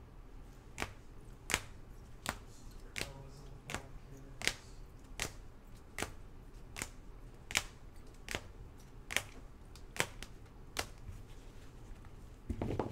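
Rigid plastic toploaders clicking against one another as a stack of encased trading cards is flipped through one card at a time: a sharp click about every three-quarters of a second, about fourteen in all, stopping about a second before a brief rubbing sound near the end.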